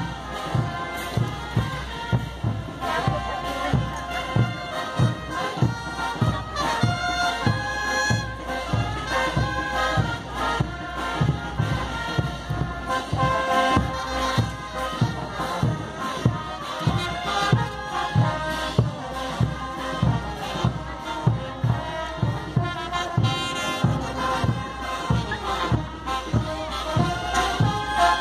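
Live brass band playing dance music, brass carrying the melody over a bass drum that keeps a steady beat of about two strokes a second.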